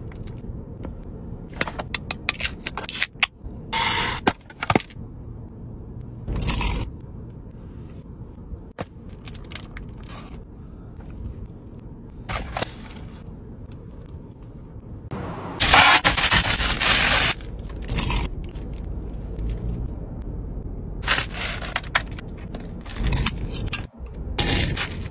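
Close-up eating and food-handling sounds: biting and chewing a cheeseburger, the soft bun pulled apart by hand, and paper wrapping rustling, in irregular bursts over a steady low rumble. The longest, loudest burst comes about two-thirds of the way through.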